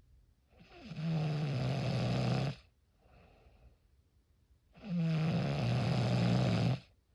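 Snoring: two long, loud snores about four seconds apart, each a rattling drone lasting about two seconds, with a faint breath between them.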